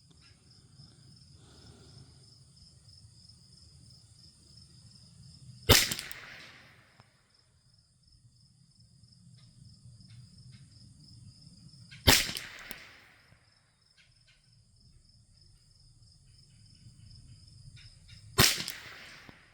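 Three single shots from a Thompson/Center TCR22 .22 LR rifle firing SK Standard Plus ammunition, about six seconds apart, each with a short echo. Insects chirr steadily throughout.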